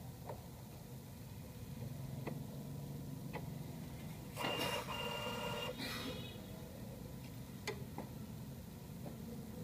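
HP LaserJet Pro M225dw laser printer's mechanism: a low steady hum with a few scattered clicks. About four seconds in, the drive motor runs briefly with a whine for about a second and a half, then stops.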